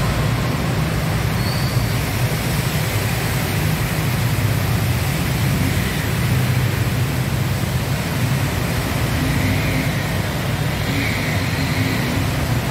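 Steady traffic noise on a flooded road: cars, motorbikes and auto-rickshaws driving through standing water, their tyres splashing, under a continuous even rush of water.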